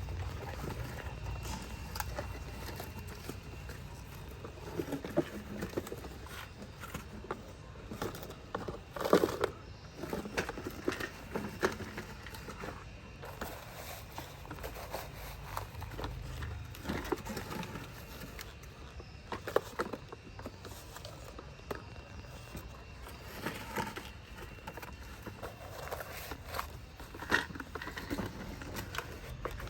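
Toy construction vehicles being played with: scattered clicks, crackles and scraping over a low rumble, with a few louder knocks.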